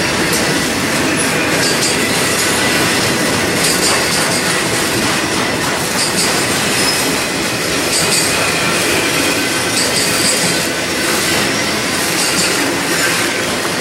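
Intermodal freight train's cars rolling past: a steady rumble and rattle of wheels on rail, with a brighter high-pitched hiss flaring about every two seconds and a faint thin wheel squeal.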